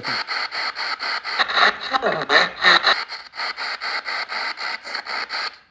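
Spirit box sweep radio through an audio processor: a choppy hiss of radio static, cut into about eight pulses a second by the station sweep, with snatches of broadcast voice mixed in from about a second and a half in. It drops out briefly near the end.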